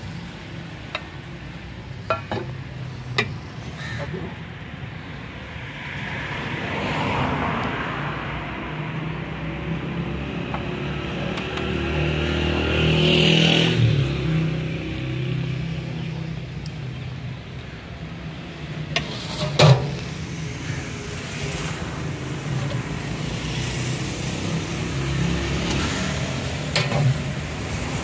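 Street traffic going by, a low rumble that swells as a vehicle passes, loudest about halfway through. Several sharp metal clanks of a ladle and lid against a large aluminium cooking pot, the loudest about two-thirds of the way in.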